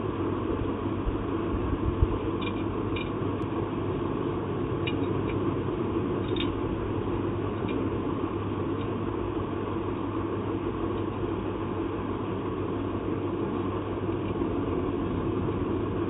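Steady low rumble with a constant hum, with a few faint light clicks and one dull thump in the first several seconds.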